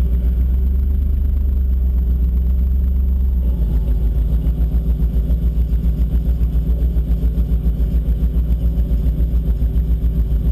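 Ford F-150 SVT Lightning's supercharged 5.4-litre V8 idling at the start line, a loud low rumble that takes on a fast, regular pulsing beat about a third of the way in.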